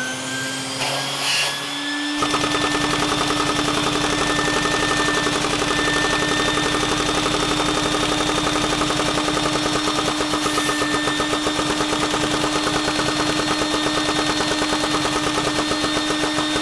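A vacuum cleaner's motor spins up with a rising whine. About two seconds in, the LEGO 6x6 flathead poppet-valve vacuum engine it draws air through starts running, with a fast, even clatter over the vacuum's steady whine.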